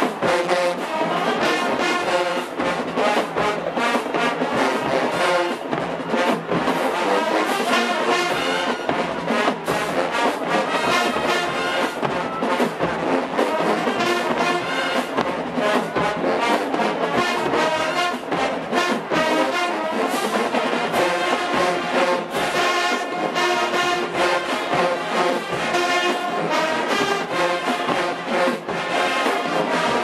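Marching band playing a loud brass-heavy tune over a steady beat of marching drums.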